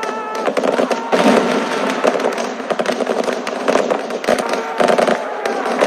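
Battle sound effect: dense, continuous crackle of rapid gunfire, the shots overlapping with no pause.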